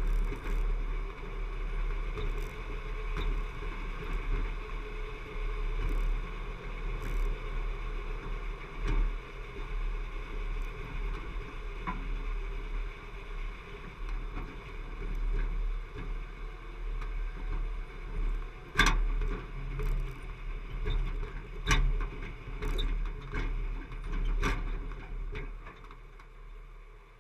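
Jeep driving over a rocky dirt track, picked up by a camera mounted at the front: a steady low rumble of engine and tyres on gravel, with sharp knocks as it jolts over rocks, several in the second half. The rumble fades near the end.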